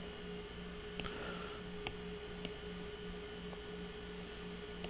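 Steady low electrical hum with a faint pulsing buzz under it, and a few soft taps of a stylus on a tablet screen.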